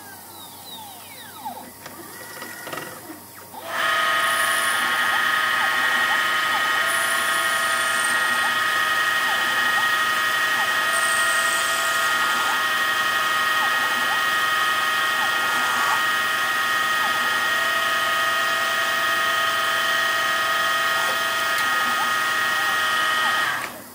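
Home-made CNC lathe running an automatic machining cycle. For the first few seconds quieter motor whines sweep up and down in pitch; then, about four seconds in, a loud, steady machine whine of several high tones starts and runs until it cuts off just before the end, with short quick pitch sweeps over it.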